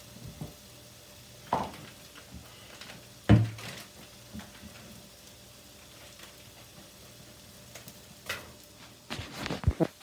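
Beef burger patties sizzling steadily in a dry frying pan, with a few sharp knocks of kitchenware; the loudest comes about a third of the way in and a quick run of them comes near the end.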